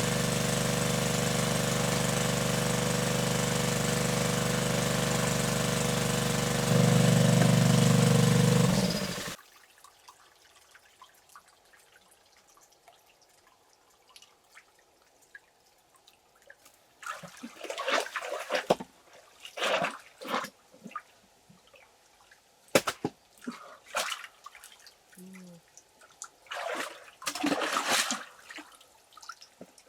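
A steady motor hum gets louder about seven seconds in and stops abruptly a couple of seconds later. After a quiet pause comes a string of short, irregular water splashes.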